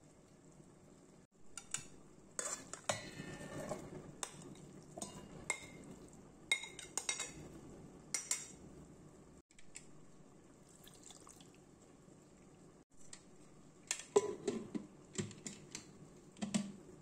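Steel kitchen utensils clinking and scraping in short, irregular bursts against a steel mixer jar. Near the end comes a second run of metal clatter with some ringing as a pressure cooker's lid is handled.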